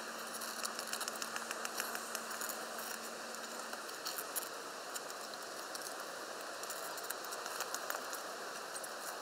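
A knife scratching and cutting through the fire-resistant sheet of a tent's stove-jack panel, with small irregular clicks and rustling as the material is handled.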